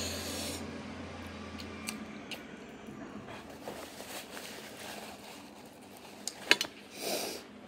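Paper napkin rustling and crumpling as it is wiped across the mouth, with faint scattered ticks and a couple of sharp clicks near the end.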